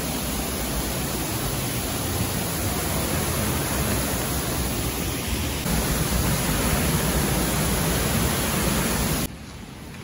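Steady rushing of a waterfall, loud and even. It gets a little louder about halfway through and drops away sharply near the end.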